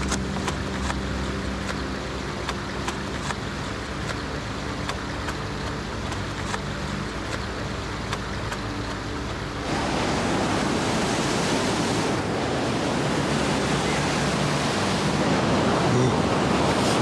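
A low steady hum with light ticks, then about ten seconds in a sudden change to a loud, steady rush of falling water from a waterfall.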